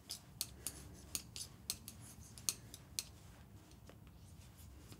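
Metal-tipped knitting needles clicking faintly against each other as stitches of super chunky yarn are knitted off, a quick irregular run of light clicks that thins out after about three seconds.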